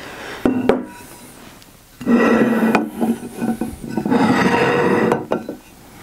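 Autoprop H6 propeller blades slid across a wooden bench top in two long scraping drags, about two and four seconds in, after a couple of knocks as a blade is set down.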